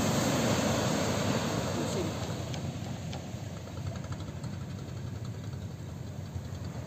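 Surf on a sand beach: a wave breaks along the shore and its wash rushes up the sand, the noise slowly fading over the next few seconds.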